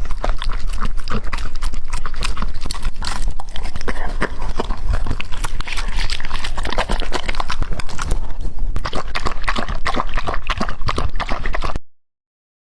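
Rapid, irregular clicking and tapping that runs on without pause, then cuts off suddenly near the end.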